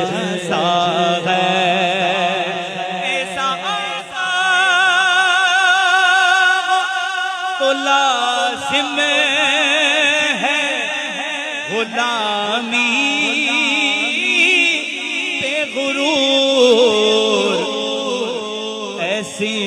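A naat reciter's voice through a microphone and PA system, drawn out in a long wordless melismatic passage with heavy, wavering vibrato. A steady low vocal drone sits beneath it for the first few seconds.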